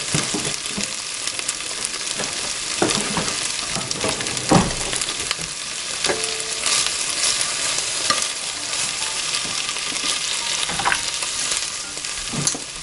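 Marinated pork ribs sizzling steadily in a frying pan, with scattered knocks and scrapes of metal tongs turning the pieces; the loudest knock comes about four and a half seconds in.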